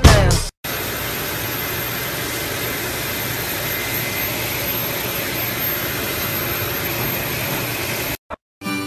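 Steady rushing blow of a pet grooming dryer with a faint motor whine, cutting off suddenly near the end.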